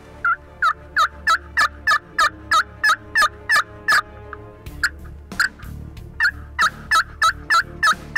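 Turkey call sounding a long series of hen yelps, about three notes a second, with a short break about halfway through.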